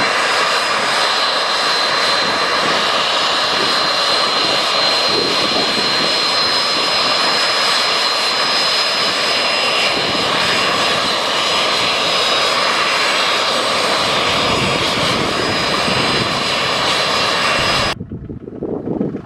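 Jet Provost's Armstrong Siddeley Viper turbojet running close by as the jet taxis, a loud, steady jet rush with a high whine on top. Near the end the sound drops abruptly to a much lower level.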